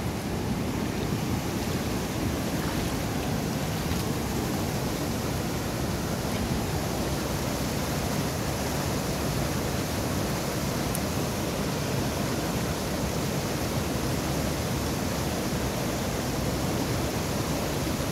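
A big, high-running river rushing: a steady roar of water that does not let up.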